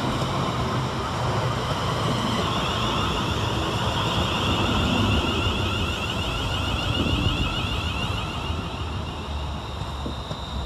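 Two coupled Class 350 Desiro electric multiple units rolling past as they arrive: a steady rumble of wheels on rail, with a high wavering whine above it from about two seconds in.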